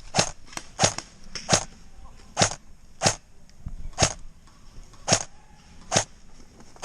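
Airsoft gun firing single shots: about nine sharp cracks, spaced unevenly about a second apart.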